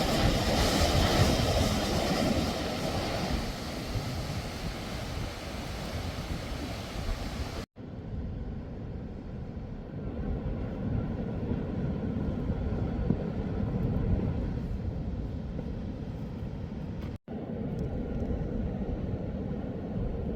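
Wind rumbling on the microphone, a steady low noise with no distinct events, broken by two abrupt dropouts about eight and seventeen seconds in.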